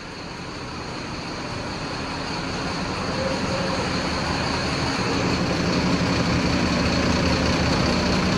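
BharatBenz milk tanker's diesel engine running at idle, growing steadily louder.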